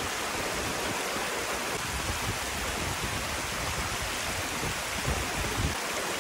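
Steady rush of a mountain stream cascading over rocks.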